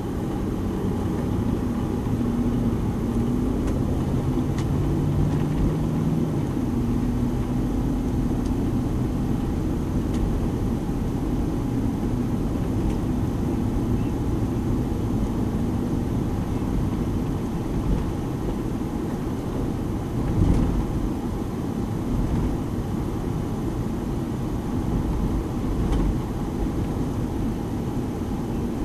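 An engine running steadily under a dense low drone, its hum drifting slightly in pitch, with one brief knock about two-thirds of the way through.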